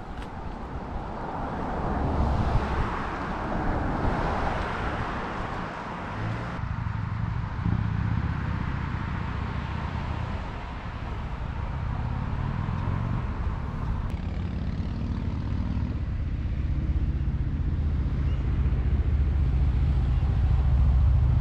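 A motor vehicle engine running, a low drone that grows louder toward the end.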